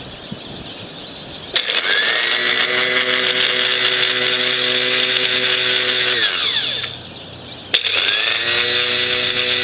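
An MTD riding mower's electric starter motor free-spinning on jumper leads, run twice. Each run starts with a click and a quick rise to a steady whine. The first winds down about 6 to 7 s in, and the second starts near the end. It runs smooth, neither squealing nor dragging, and a shop mechanic judged it good.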